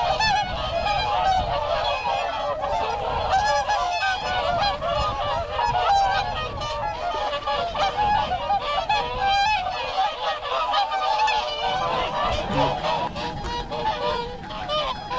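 A large flock of swans calling together: a dense, continuous chorus of many overlapping honking calls.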